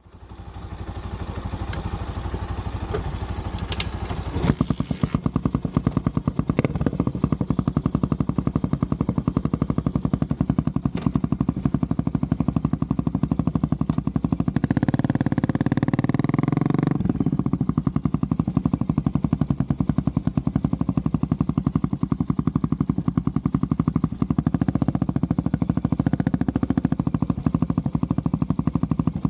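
Honda CB400SS single-cylinder engine idling with a rapid, even pulse. It is revved briefly about fifteen seconds in, then settles back to idle. The first four seconds or so hold a noisier, hazier sound before the pulse comes through clearly.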